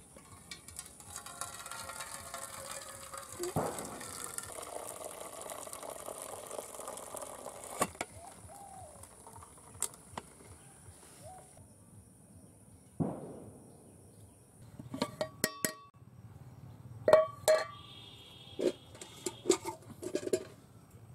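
Boiled rice being drained in an aluminium pot tipped over its lid plate: starchy water runs off in a steady hiss, with a couple of knocks of metal on metal. Near the end the lid and pot clink and ring together several times as the pot is set down and uncovered.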